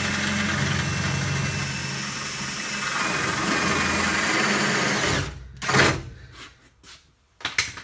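Electric drill with a 3/8 in bit running steadily through sheet metal to make the hole for an M6 rivnut, stopping about five seconds in, followed by a short loud burst just before six seconds.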